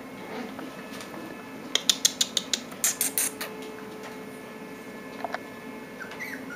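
Puppy claws clicking on a tile floor: a quick run of about a dozen sharp clicks lasting under two seconds, then a brief high squeak near the end.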